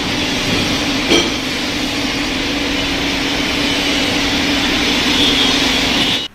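Mahindra Scorpio engine running steadily at idle, with one short knock about a second in. The engine starts but will not rev past 2000 rpm and misfires, a fault being traced to either the wiring or the ECM.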